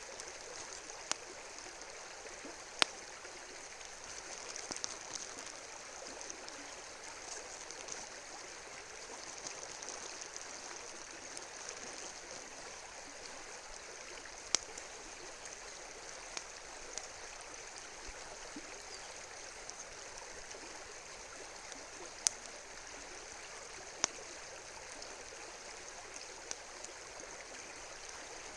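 Steady rush of a flowing river, with a few sharp, isolated pops from a wood campfire.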